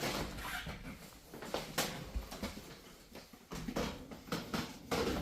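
Footsteps and irregular knocks, scuffs and creaks as people move over the floor and loose clutter inside an old abandoned railway carriage.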